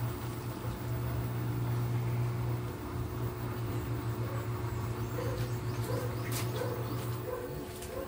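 Panasonic NA-V10FX1 front-load washing machine running at the start of its tub-clean cycle, a steady low hum that drops away about seven and a half seconds in. Animal calls sound faintly in the background.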